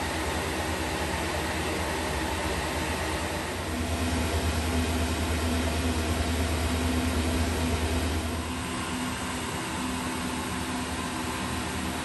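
Steady hum of airblown inflatables' built-in blower fans running, keeping the figures inflated, with a slightly louder swell for a few seconds in the middle.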